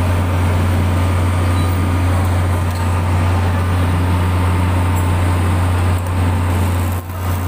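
A steady low machine drone with a hiss over it, cutting off abruptly shortly before the end.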